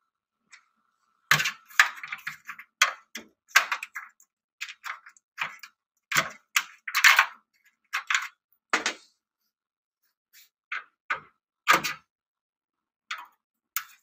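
Screwdriver working the screws out of a CRT monitor's sheet-metal shield, with irregular metal clicks, scrapes and clanks as the metal case is handled.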